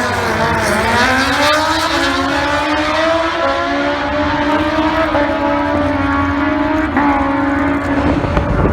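A racing motorcycle engine at high revs under load. Its pitch dips briefly at the start, then climbs slowly, with small breaks in pitch about five and seven seconds in.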